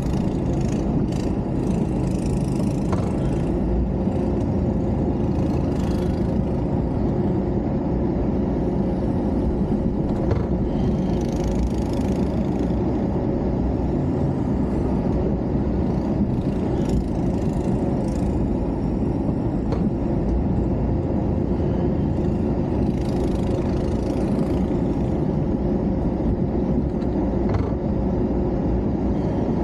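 Pickup truck engine running steadily, with a few brief higher noises scattered through.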